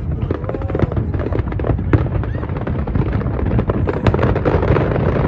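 Fireworks display: a rapid, irregular run of bangs and crackles over a continuous low rumble, with sharper reports about two and four seconds in.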